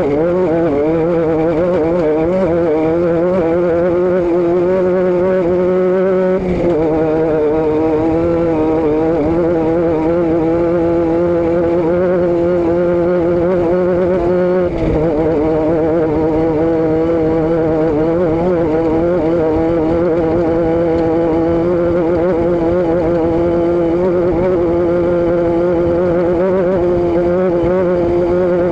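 Vehicle engine and exhaust running steadily under way, a constant droning note. The note shifts briefly twice, about six and fifteen seconds in.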